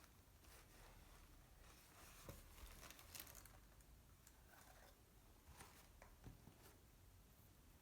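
Near silence with faint, scattered rustles and small clicks from handling, a little busier about two to three seconds in and again near six seconds.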